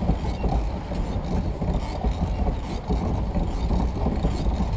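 Pedal boat under way: a steady churning rumble from the paddle wheel and pedal drive working through the water.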